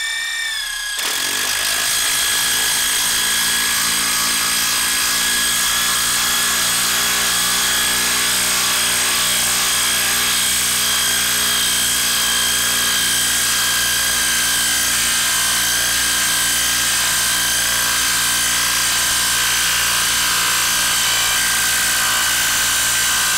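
DeWalt DCF890 cordless impact wrench with a 1/4-inch hex anvil driving an 8-inch lag screw into a log under heavy load. It changes about a second in, then runs as a continuous steady hammering whine whose pitch sags slowly as the screw goes deeper.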